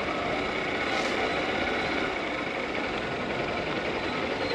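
Honda Unicorn motorcycle riding at a steady speed, its engine running under a steady wash of wind and road noise.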